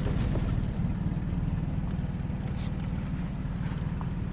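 Boat motor running steadily at low speed, a constant low rumble.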